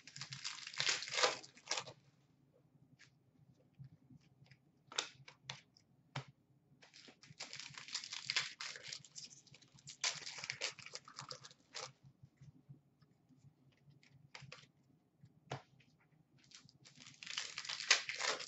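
Hockey card packs being torn open and their wrappers crinkled while the cards are handled and shuffled: three stretches of papery rustling, at the start, in the middle and near the end, with scattered small clicks and taps between them.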